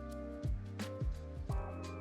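Background music with a steady beat of about two thumps a second, over a sustained bass and held notes.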